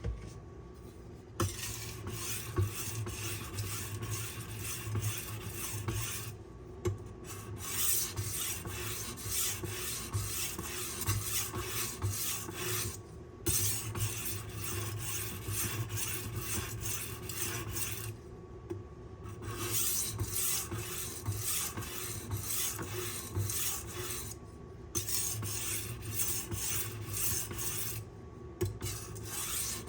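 Steel knife blade being stroked back and forth across a medium-grit aluminum oxide sharpening stone, a rasping run of quick strokes that pauses briefly several times.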